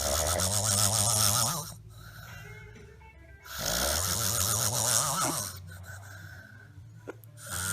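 A person snoring loudly: two long, rattling snores about three and a half seconds apart, with a third beginning near the end.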